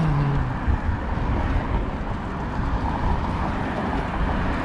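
Steady traffic noise from a busy main road, with wind rumbling on the microphone of a moving bicycle.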